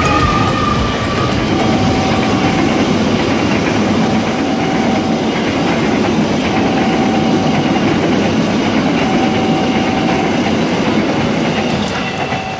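Argo Wilis express passenger train passing at speed close by: the diesel locomotive, then a long run of coaches, with wheels clattering over the rail joints in a steady, loud rumble that eases near the end as the last car goes by. A faint tone repeats about every two and a half seconds.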